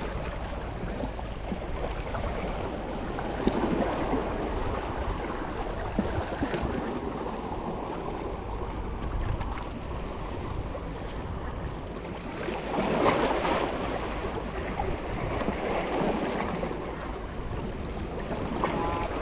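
Small waves washing against a rocky shore in a steady wash, swelling up several times, loudest about two thirds of the way through, over a low rumble.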